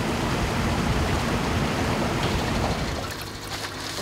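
A Stabicraft boat's outboard motor running under way, mixed with a steady rush of water and wind. About three seconds in the motor is throttled back and the sound drops to a quieter idle hum.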